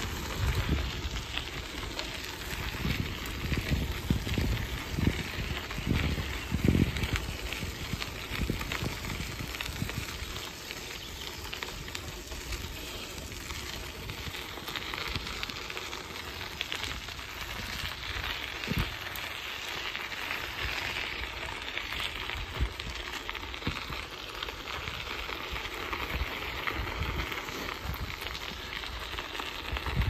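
Bicycle tyres rolling over a gravel path: a steady crackling hiss, with low thumps from bumps, most of them in the first several seconds.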